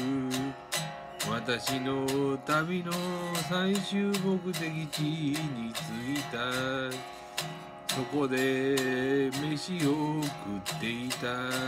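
A man singing to his own electric guitar, strummed in a steady rhythm.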